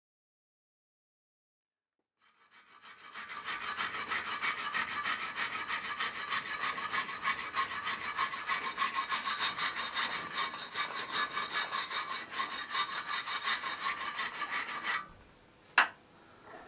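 Hand wire brush scrubbing bolt heads clamped in a bench vise, in fast back-and-forth strokes of about five a second. It fades in after about two seconds of dead silence and stops sharply near the end, followed by a single sharp click.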